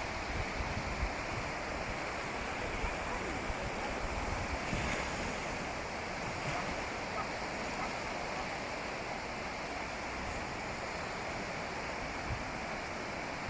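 Ocean waves washing onto a beach, with wind buffeting the microphone.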